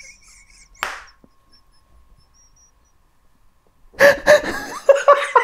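Stifled laughter: a short snorted burst of breath about a second in, a quiet pause, then laughter breaking out near the end in rapid, evenly spaced ha-ha pulses.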